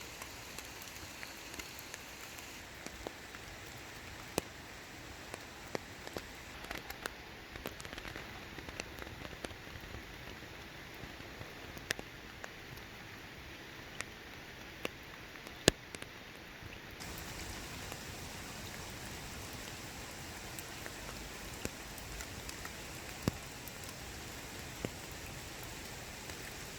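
Rain falling on water and leaves: a steady soft patter with many scattered, sharper single drips, slightly louder from about two-thirds of the way in.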